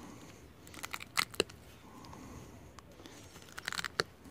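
Wire cutters snipping copper wire off a salvaged TV part: a few sharp snaps about a second in, and another cluster near the end, with faint rustling of wire between them.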